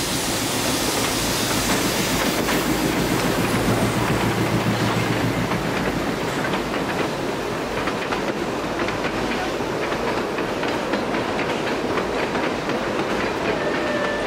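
Puffing Billy narrow-gauge steam train passing close by. The locomotive's heavy rumble comes first, then the carriages rattle past with a steady run of clicks from the wheels over the rail joints.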